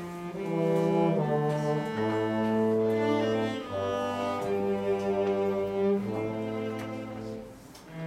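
Live chamber music with a bowed cello playing long, held low notes. Other instruments hold notes above it, and the notes change every second or so.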